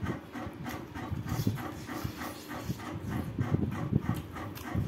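Close-miked, open-mouthed chewing and lip smacking as a man eats a mouthful of rice and pork trotter, with steady wet chews at about four a second.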